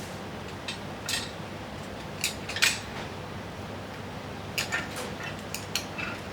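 Irregular clicks and short scrapes of kitchen utensils being handled, over a steady low hum.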